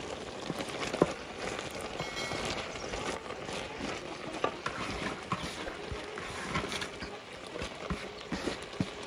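Shredded cabbage being tipped into a metal cooking pot and stirred with a wooden spoon: a steady rustle of the leaves with scattered light knocks and scrapes of the spoon against the pot.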